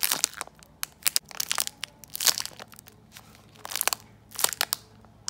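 Clear plastic wrapper crinkling and crackling in irregular bursts as the foam squishy granola bar sealed inside it is squeezed and handled.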